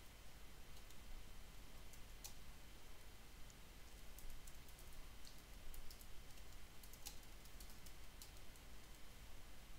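Faint, irregular keystroke clicks of typing on a computer keyboard, over a low steady hum.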